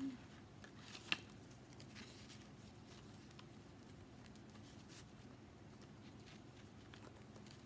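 Faint handling of paper and card journal pages, with one sharp tick about a second in and a few softer ticks, over a low steady room hum.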